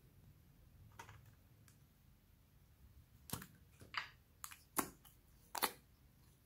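A hand handling a small plastic tub of green slime and poking a finger into the slime: one faint click about a second in, then a run of short, sharp clicks and pops from about halfway on.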